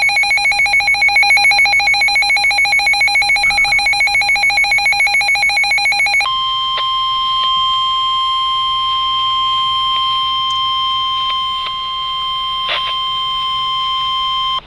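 Emergency Alert System alert tones for a severe thunderstorm warning. For about six seconds a rapid, pulsing electronic warble of several pitches plays, then a single steady warning tone holds for about eight seconds and cuts off suddenly.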